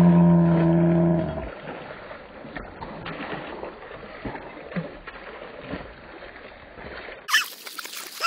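Shallow creek water trickling over stones, with small knocks of footsteps on the rocks. A loud held pitched tone fills the first second before fading out, and near the end a sudden brighter sound with a voice cuts in.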